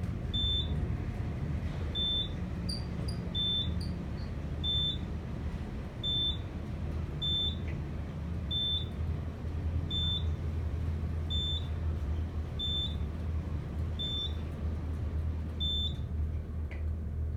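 Elevator car travelling down with a floor-passing beeper giving a short high beep about every 1.4 seconds, twelve in all, one for each floor the car passes. Under the beeps runs the steady low hum of the car in motion.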